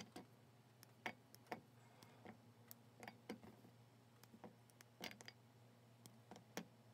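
Lindt milk chocolate bar being snapped into pieces by hand and dropped into a stainless steel bowl: a dozen or so faint, sharp, irregular snaps and clicks.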